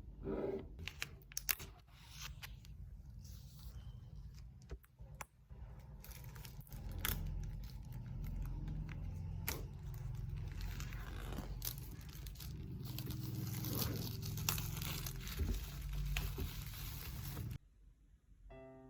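Product packaging being torn open and handled: crinkling, tearing and scraping, with scattered sharp clicks. It cuts off abruptly near the end.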